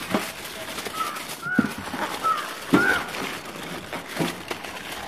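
Aluminium foil crinkling and rustling as it is pulled from the roll and pressed around a banana-leaf fish parcel, with a few short bird chirps.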